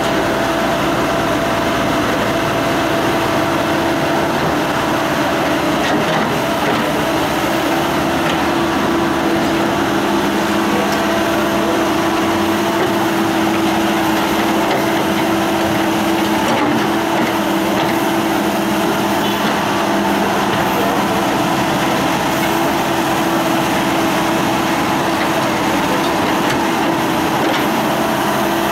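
Caterpillar backhoe loader's diesel engine running steadily, with a constant hum, while the backhoe arm digs a trench.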